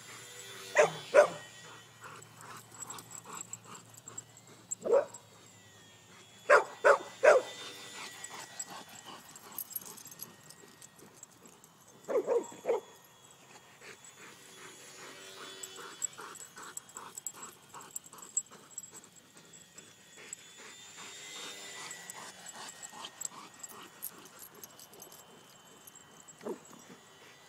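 Dogs barking in short bursts: two barks near the start, one about five seconds in, a quick run of three around seven seconds, a pair around twelve seconds and a softer one near the end.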